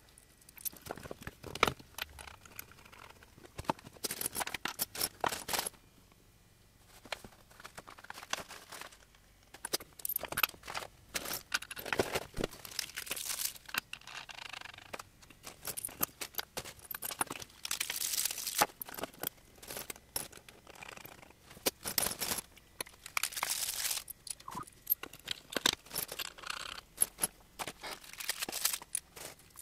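Small metal hardware (nuts, washers and bolts) clinking and being handled on a wooden workbench, mixed with rustling of plastic parts bags and paper, in irregular bursts of clicks and crinkles.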